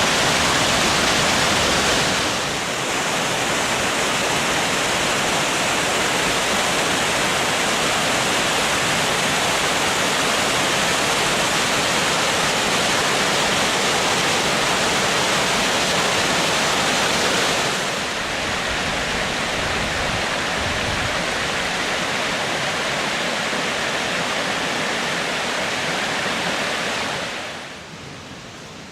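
Water pouring over a stream weir, a loud, steady rush that dips briefly twice and drops away sharply near the end.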